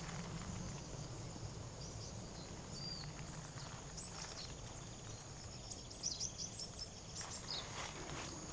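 Small birds chirping: scattered short, high calls, most of them about four seconds in and again around six to seven seconds, over a steady low outdoor rumble.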